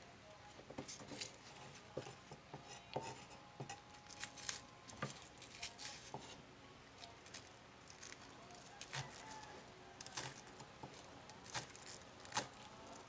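Onion being finely cut, an irregular run of quick crisp cuts with a few duller knocks.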